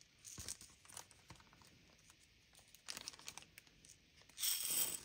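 Small clear plastic zip-lock bead bags crinkling as they are handled, in a few short bursts with the loudest one near the end.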